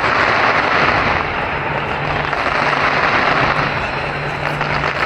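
Fireworks crackling in a loud, steady, dense wash of noise, with no single bang standing out.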